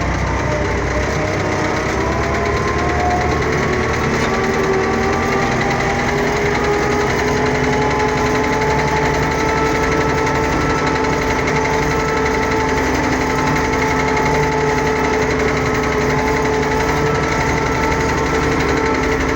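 Engine of a farm machine running steadily, its pitch rising a little over the first few seconds and then holding.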